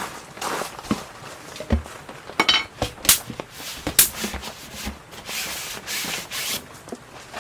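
Tableware being handled: irregular knocks and rubbing, with a ringing metallic clink a little over two seconds in and sharper knocks around three and four seconds.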